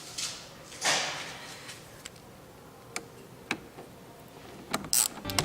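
A few sharp metal clicks and a short scrape as a 10 mm socket wrench tightens a cleaned, previously rusty contact clamp back down.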